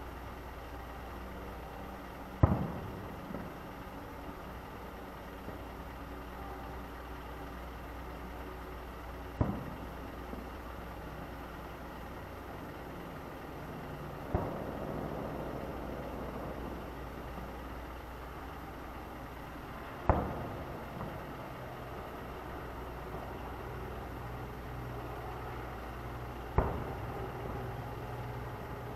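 Distant fireworks bursting: five single booms several seconds apart, each followed by a short echoing tail. A steady low hum runs underneath.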